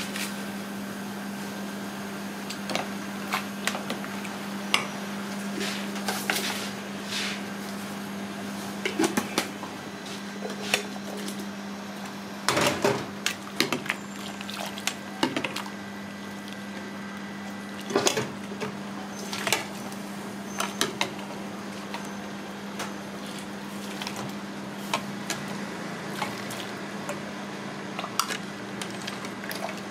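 Metal ladle clinking and knocking against steel and aluminium cooking pots, in irregular clusters of sharp clicks, over a steady low hum from the kitchen's gas stove equipment.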